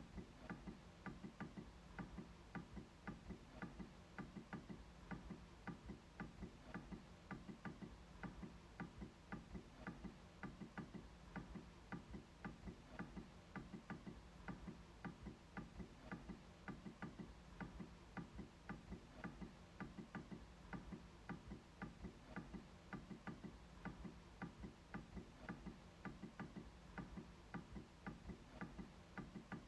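A MacBook trackpad being clicked over and over at an even pace, about three faint clicks a second.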